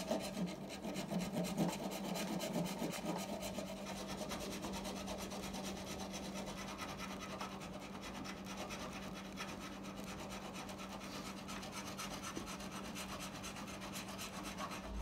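Flat steel hand file drawn back and forth over hardened wood-putty fill on a wooden chair arm, a steady run of quick rasping strokes that are heaviest in the first few seconds.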